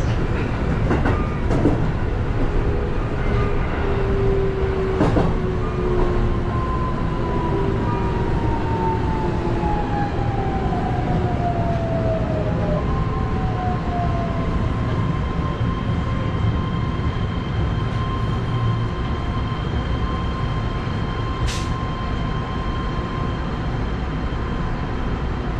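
Electric commuter train braking into a station: a few clicks of wheels over rail joints in the first seconds, then the traction motors' whine falling in pitch as it slows, and a steady electrical hum once the train has stopped.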